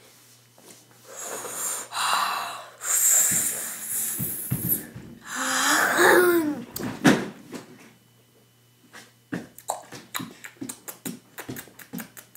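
A boy's forceful hissing breaths in and out through the mouth as the cinnamon Red Hots candy burns, with a short strained vocal sound about six seconds in. Over the last few seconds, a quick run of small clicks from chewing the candies.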